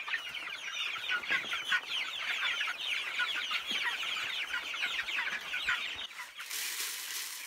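Many young chickens (Barred Rock and meat-bird chicks) peeping at once, a dense stream of short downward-sliding peeps. About six seconds in the peeping stops and a steady hiss takes over.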